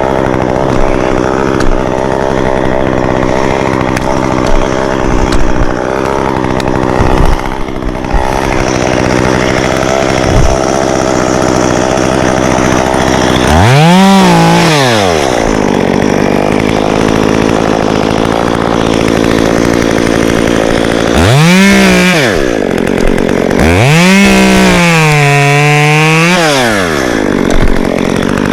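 Stihl chainsaw idling, then revved up and back down three times in the second half, the third rev held for a few seconds. Scattered knocks in the first third.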